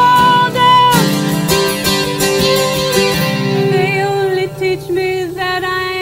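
Live acoustic folk music from a fiddle and two guitars, strummed and picked, with a woman singing a long held note at the start.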